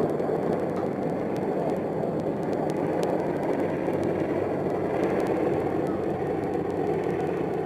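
AH-64 Apache helicopter's engines and rotor running, a steady even rushing hum.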